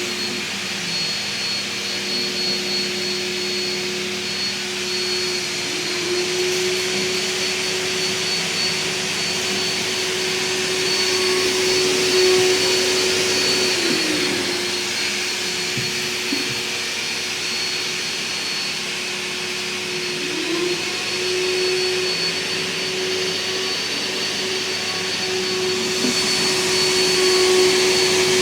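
Vacuum cleaner motor running with a steady whine and rushing air. Several times its pitch slides down as it is switched off, then climbs back up as it is switched on again.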